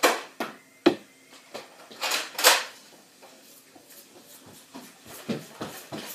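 A toy Nerf dart blaster being handled and fired: sharp plastic clicks and knocks, with a short, loud rushing burst about two seconds in.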